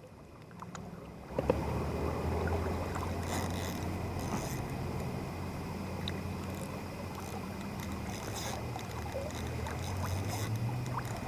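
Steady rush of a small river flowing through a run, with a low hum underneath.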